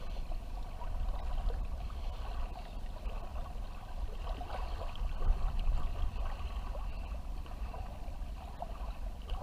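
Shallow water lapping and trickling against a fishing kayak, over a low steady rumble.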